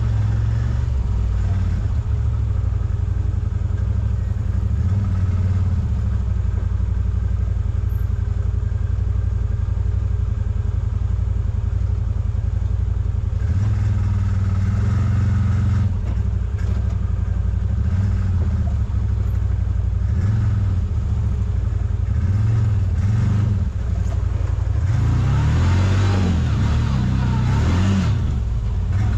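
CFMOTO ZForce 950 side-by-side's V-twin engine running under way, its note swelling and easing as the throttle is worked. A brighter, busier noise joins near the end.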